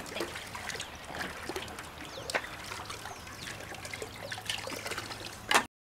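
Water trickling and pouring into a metal basin as green bamboo tubes are rinsed and water runs out of them, with light scattered knocks and clatter. A sharp, loud knock comes near the end.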